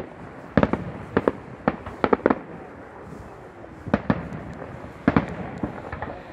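Aerial firework shells bursting in the sky: about eight sharp bangs at uneven intervals, a quick cluster in the first two and a half seconds, then a few more spread further apart.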